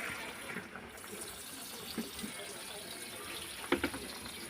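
Liquid in a cooking pot of coconut-milk broth, a steady watery sound, with a few light knocks about two seconds in and a quick cluster of them near the end.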